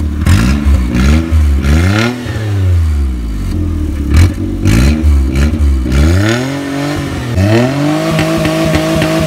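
Maruti 800's three-cylinder engine revved through a custom valvetronic exhaust, its pitch rising and falling several times with sharp clicks between the revs, then held at a steady higher speed from about seven seconds in.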